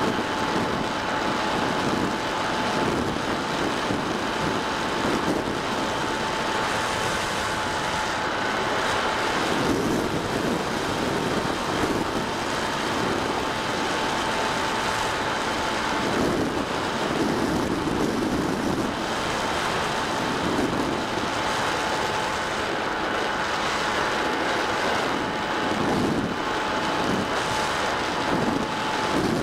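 Onboard recording from an electric RC Bix3 glider in flight: a steady motor and propeller whine, with wind rushing over the microphone.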